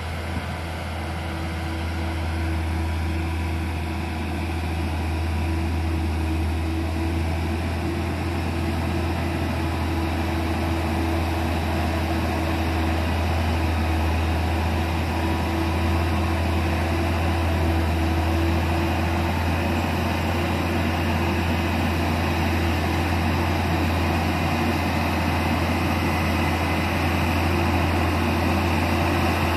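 Hino truck's diesel engine pulling steadily up a steep hill under load, a low steady drone that grows gradually louder as the truck approaches.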